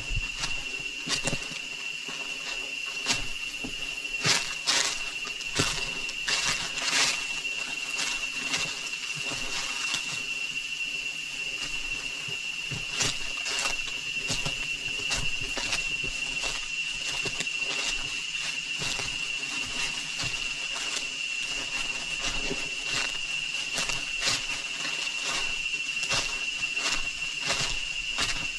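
Steady high-pitched drone of rainforest insects, holding one pitch throughout, with irregular short clicks and crunches over it, thickest in the first several seconds.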